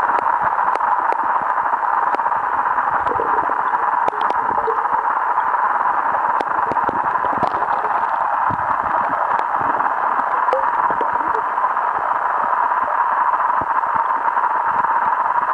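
Underwater sound picked up by a submerged camera: a steady, muffled hiss with scattered small clicks and knocks.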